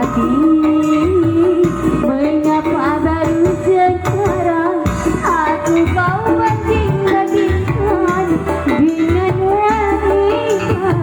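Music: a song with a wavering lead melody over a steady, full accompaniment, played loudly throughout.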